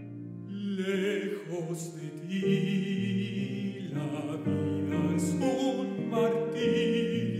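A man singing a classical art song with vibrato, accompanied by piano. The piano plays alone at first, and the voice comes in about a second in.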